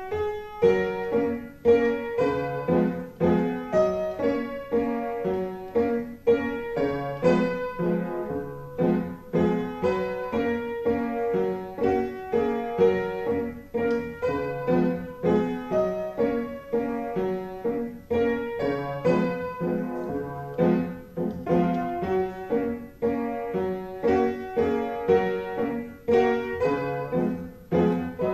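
Upright piano played solo: a waltz, with a melody sounding over repeated lower notes in a steady rhythm.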